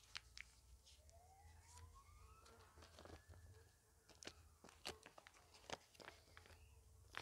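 Near silence, broken by faint rustles and a few sharp clicks from a paper seed packet being handled and opened. A faint distant siren rises slowly in pitch between about one and three seconds in.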